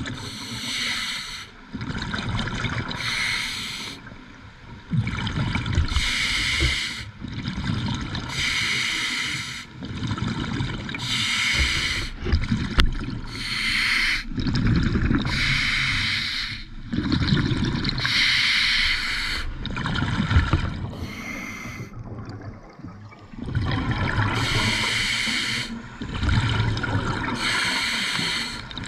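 Scuba regulator breathing heard underwater: short hissing inhalations through the demand valve alternate with bubbling, gurgling exhalations, repeating every two to three seconds.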